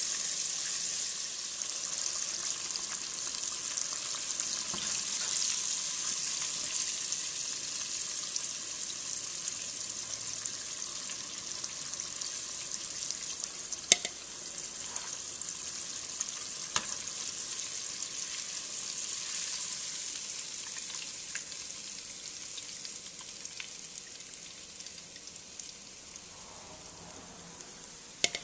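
Buttermilk-battered sole fillet strips deep-frying in hot oil: a steady sizzle that slowly quietens. Two sharp clicks cut through it, one about halfway through and another a few seconds later.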